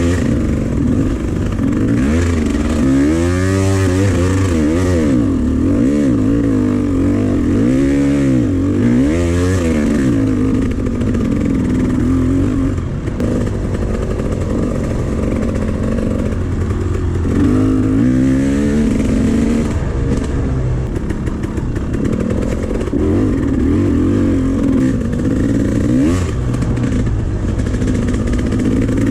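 Dirt bike engine revving as it is ridden, its pitch repeatedly climbing and dropping with throttle and gear changes, with a steadier stretch in the middle.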